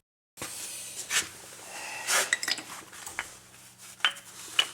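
Metal brake parts clinking and scraping as they are handled, with several sharp metallic clinks over a steady low hum.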